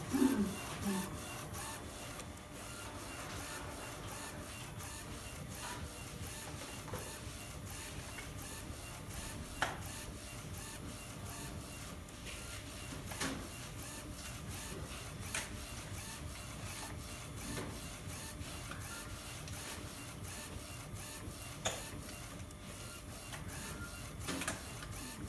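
UV inkjet printer printing: the print-head carriage shuttles back and forth with a motor whir, swelling with each pass about every three-quarters of a second, with a few light clicks now and then.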